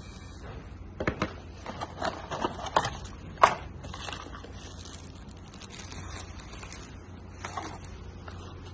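Packaging being handled: plastic bags and cardboard rustling and crinkling, with a few sharp clicks and knocks between about one and three and a half seconds in, the last the loudest.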